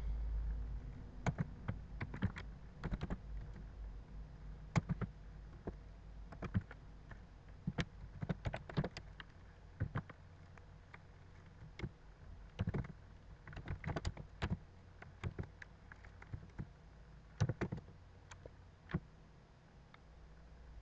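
Typing on a computer keyboard: irregular keystrokes in short runs with pauses between them, over a faint steady low hum.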